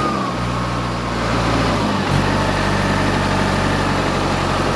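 Mahindra Arjun tractor's diesel engine idling steadily, with a short break in the engine note about two seconds in.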